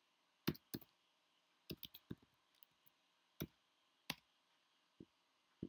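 Computer keyboard being typed on: a dozen or so separate key clicks at an irregular, unhurried pace, with short pauses between them.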